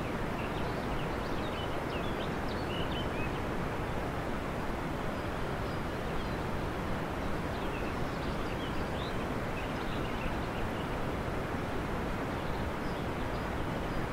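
Steady, even rushing noise, with faint short high chirps now and then, mostly in the first few seconds and again around eight to ten seconds in.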